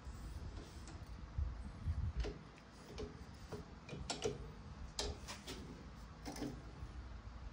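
Scattered light clicks and knocks of a rusty steel piece being handled and set in a steel drill-press vise, about eight in all between two and six and a half seconds in, over a faint low rumble.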